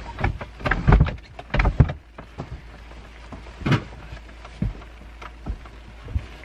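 Irregular thumps and rustles of a bed and its bedding being folded up and moved, the loudest about a second in and again near two and four seconds, over a low steady hum.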